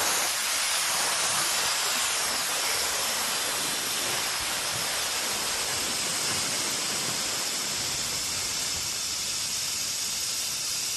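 Gas venting from a composite gas cylinder's smart valve through a release clamp, a strong, steady hiss that does not let up. The steady rush shows that this cylinder, filled through the dedicated filling head, holds plenty of gas.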